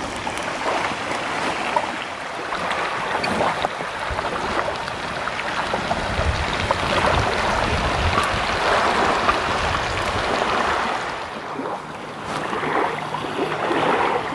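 Steady hiss of rain falling, with a low rumble about midway through.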